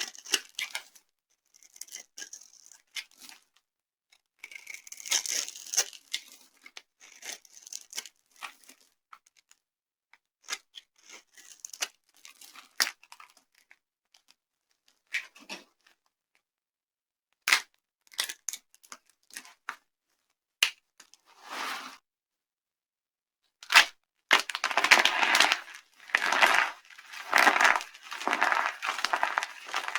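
Dry soap being crushed and broken apart: scattered crackles and snaps at first, then dense, louder crunching near the end.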